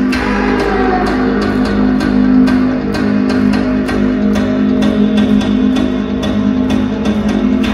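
Loud music with distorted guitar and a steady drum beat.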